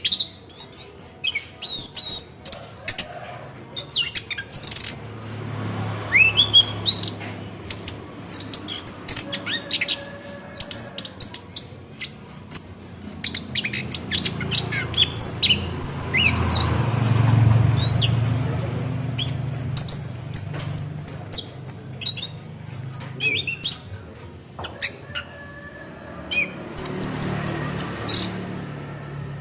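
Orange-headed thrush singing a rapid, unbroken run of short chirps and high whistles. This is the rolling song that bird keepers call 'ngerol'.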